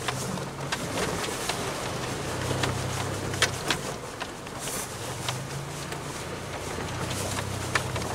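Vehicle engine running low and steady, with scattered sharp clicks and knocks over it.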